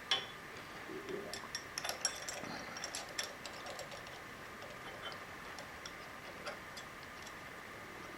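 Small metal-on-metal clicks and taps as a drill bit shank is fitted into a hole to locate a dividing head: a sharp click at the start, a busy patch of light clicks over the next couple of seconds, then a few scattered ticks.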